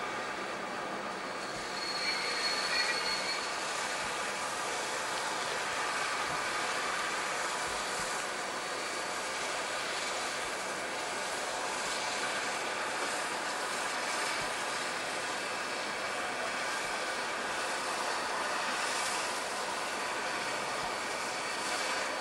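Steam locomotives in steam at a railway depot: a steady hiss, with a brief high-pitched squeal about two seconds in.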